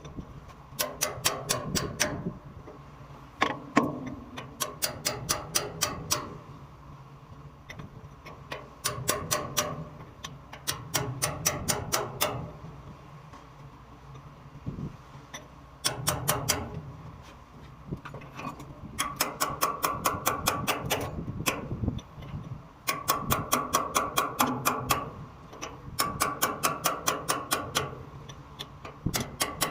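Rapid metallic clicking from a hand tool working on metal, in bursts of a second or two at about eight clicks a second, each burst with a faint ring, over a steady low machinery hum.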